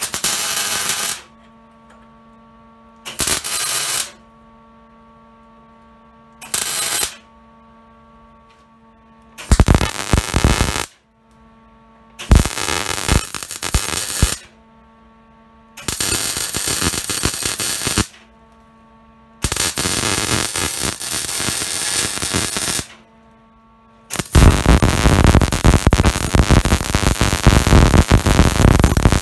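Electric arc welding steel tabs onto a steel tube frame: the arc crackles loudly in eight separate welds, each lasting from under a second to a few seconds, the longest starting near the end. Between the welds a steady electrical hum.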